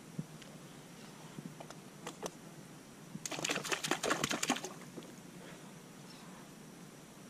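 A hooked fish thrashing at the water's surface on a cane-pole line: a rapid run of splashes starting about three seconds in and lasting about a second and a half.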